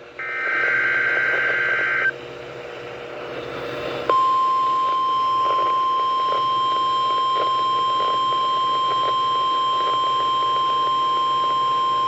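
NOAA Weather Radio emergency alert: a burst of SAME header data, a buzzy warbling screech about two seconds long, then after a two-second pause the steady 1050 Hz warning alarm tone begins about four seconds in and holds, marking a Required Weekly Test of the alert system.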